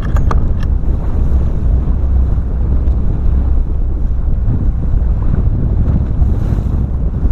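Wind buffeting the microphone on the open deck of a fishing boat at sea, a steady low rumble, with a few light clicks in the first second.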